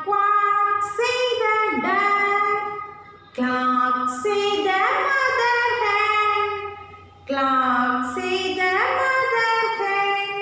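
A woman singing a children's rhyme without accompaniment, in sung phrases of held and gliding notes with short breaths between them.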